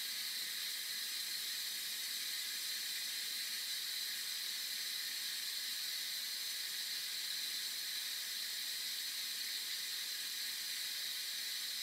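Instant Pot pressure cooker venting steam through its release valve in a steady, even hiss during a quick release, as the pot depressurizes.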